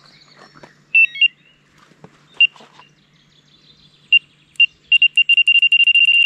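Electronic carp bite alarm on a rod pod giving a few single high bleeps, then bleeping faster and faster until it runs into one continuous tone: a fish has picked up the bait and is taking line, a run.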